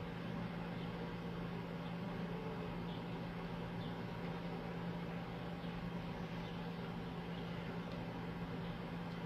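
Room tone: a steady hiss with a constant low hum underneath.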